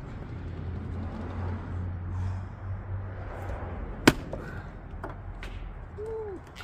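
Fiskars splitting axe striking a log round once, a single loud sharp crack about four seconds in, the blade biting into the wood and lodging without splitting it. Two lighter knocks follow about a second later.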